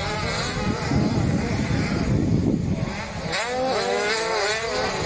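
85cc two-stroke motocross bikes racing, their engines revving up and down, loudest in the first half.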